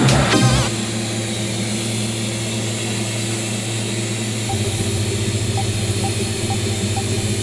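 TIG welding arc on carbon steel pipe: a steady hissing buzz over a hum, with a short crackle at the start, and a rhythmic pulsing that sets in about four and a half seconds in.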